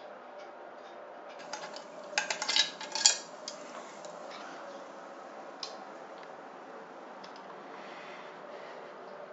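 Clatter of hard objects being handled: a flurry of clicks and knocks about two to three seconds in, the loudest near the end of the flurry, then low steady room noise with a few faint ticks.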